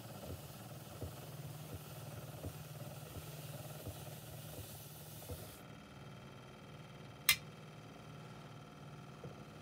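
Velvet cleaning pad brushing a spinning 78 rpm shellac record on a wind-up gramophone: a soft hiss with a faint tick about once per turn, which stops a little over halfway through when the pad is lifted. The turntable keeps running underneath with a low steady hum, and there is one sharp click near the end.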